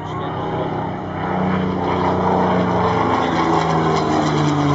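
Supermarine Spitfire Mk XVI's Packard Merlin V12 engine running at power in a flypast. It grows louder about a second and a half in, and its pitch drops slightly near the end as the aircraft passes.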